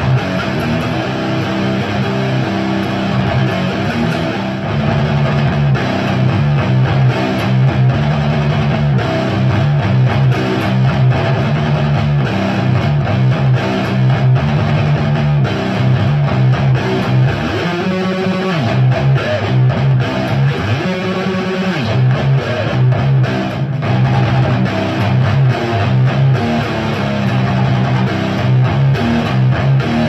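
Electric guitar with Bare Knuckle Mississippi Queen P90 pickups played through a Diezel Hagen tube amp head with JJ KT77 power tubes and a Marshall Mode Four cabinet with Celestion G12-K100 speakers, continuous riffing with shifting notes.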